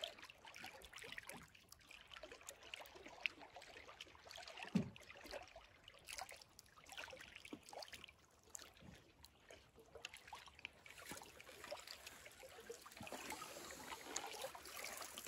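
Faint lapping and trickling of small lake waves against a canoe's hull, with scattered little splashes and drips.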